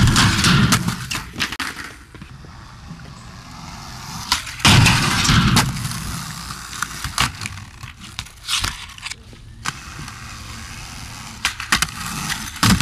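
Skateboard on rough concrete: wheels rolling, with sharp clacks of the deck popping and slapping down. There are two loud scrapes about a second long, at the start and about five seconds in, as the board slides along a rail or ledge.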